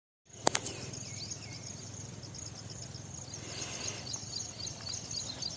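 Forest ambience full of high-pitched chirping from insects and small birds, with a few short falling calls early on. It cuts in abruptly with a sharp click.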